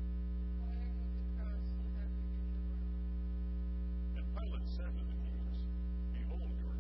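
Steady electrical mains hum with a stack of overtones, running unchanged throughout, with a few faint, brief voice sounds over it about a second in and again around four and six seconds.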